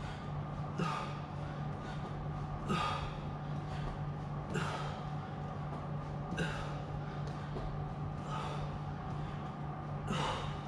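A man breathing hard while doing crunches, with a sharp exhale about every two seconds, six in all, over a steady low hum.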